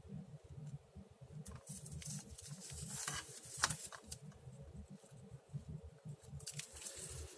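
Faint rustling and light tapping of paper being handled, with a few short, sharper rustles.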